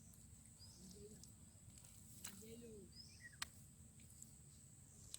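Faint outdoor ambience with a steady high insect drone, a few short bird chirps and low calls, and a few sharp clicks, the loudest about three and a half seconds in.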